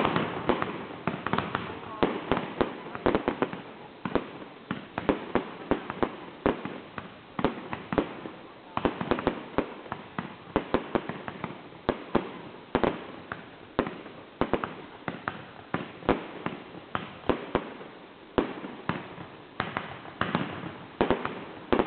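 Aerial fireworks going off in a rapid, irregular string of sharp bangs, a couple or more each second, with crackling shell bursts between them.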